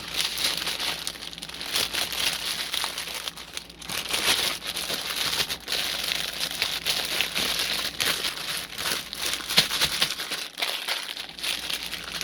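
Small plastic bags of diamond painting drills crinkling as they are handled, folded up and packed back into their container.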